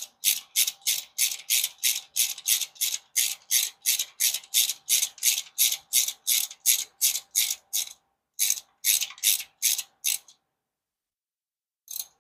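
Hand ratchet on a socket extension clicking in quick, even back-and-forth strokes, about three a second, as the number four spark plug of a 1996 Geo Tracker is run into its hole. The strokes pause briefly about eight seconds in, a few more follow, and there is one last click near the end.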